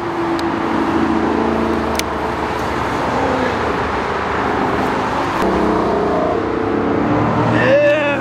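Cars running at speed past the fence on a road racing circuit, their engine notes steady and shifting in pitch as they go by. A short voice is heard near the end.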